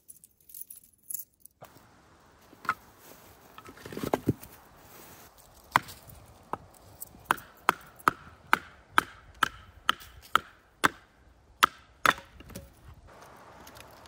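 Firewood being split into kindling: a run of about a dozen sharp wooden knocks, roughly two a second, after a few scattered knocks and a heavier thud.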